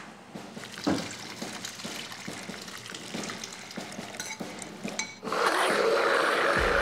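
A metal spoon stirs and scrapes a wet, grainy mixture in a bowl, with small clinks against the bowl. About five seconds in, a countertop blender motor starts and runs steadily and loudly, blending the mixture.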